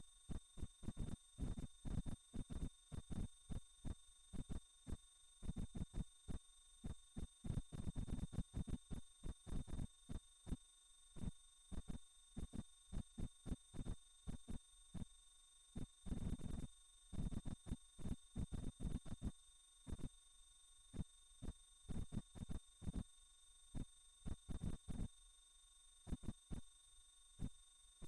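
Synthesized very high-pitched pure sine tone, a healing-frequency track, held at one steady pitch and pulsing evenly in loudness about three times a second.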